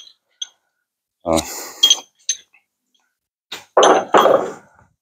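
Several metallic clanks and clinks with high ringing: a heavier knock a little over a second in, a small click, then two longer clanks near the end, as metal hardware and parts on the truck bed are handled and knocked.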